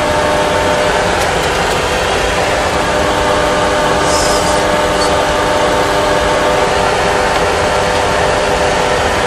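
Steady flight-deck background noise of a Boeing 737 Classic full flight simulator: a constant rush with several steady hum tones. A brief high hiss sounds about four seconds in, and a faint click a second later.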